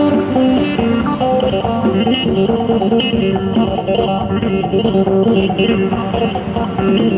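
Isan phin, the Thai plucked lute, playing a solo with a quick run of plucked notes.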